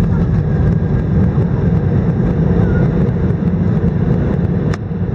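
Steady low rumble of an Airbus A319 heard inside the passenger cabin: engine and airframe noise. A single sharp click comes near the end.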